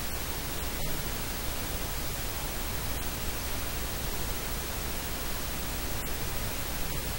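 Steady full-range hiss of static with a low hum beneath it, and no voice to be made out: the sound of a failed audio recording that carries only noise.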